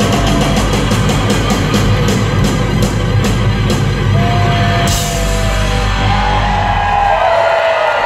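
Live rock band with drums, guitar and keyboards playing the end of a song: a run of cymbal hits leads to a final crash about five seconds in, the last chord rings on and its low end stops about a second before the end. Crowd cheering and whistling rise over it in the second half.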